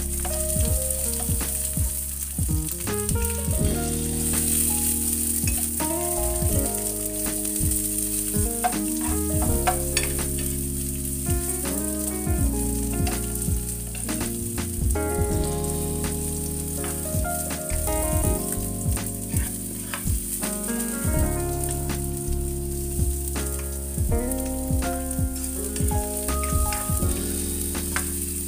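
Sliced onion rings sizzling in hot oil in a nonstick pan, with frequent light taps and scrapes of a spatula and fork as they are stirred. Background music plays underneath.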